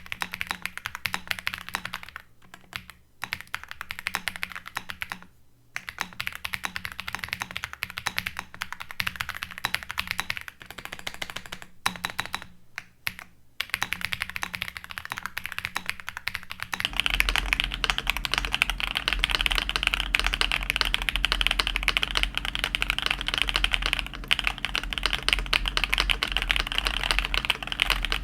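Fast typing on a Redragon K686 Pro SE mechanical keyboard, with a few brief pauses. About two-thirds of the way in it changes to continuous typing on a Royal Kludge S98 mechanical keyboard, louder and deeper.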